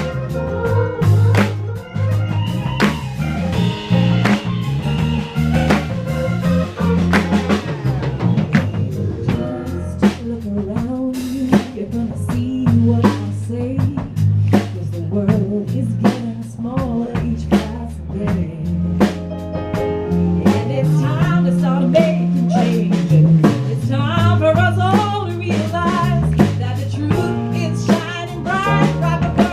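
A live gospel band playing a steady groove on drum kit, bass and guitar. Sung voices with vibrato grow stronger in the last few seconds.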